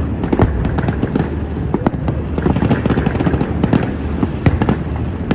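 Fireworks going off in a dense, continuous barrage of rapid pops and crackles over a low rumble, with no pause.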